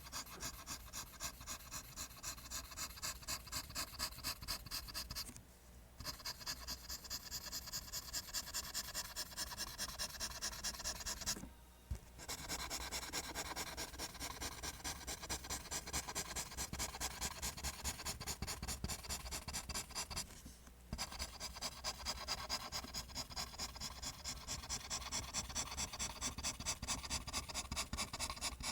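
Pencil scratching on paper in rapid, even line strokes, about three a second, stopping briefly three times.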